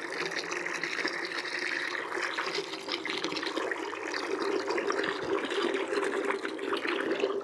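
Rinse water draining from a small manual washing machine through its drain tube, splashing steadily into a plastic bucket.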